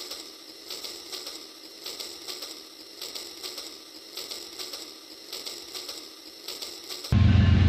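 Small battery-powered toy train running along its track, giving a light, rhythmic, high-pitched clicking. About seven seconds in, a loud, low, steady train sound cuts in suddenly.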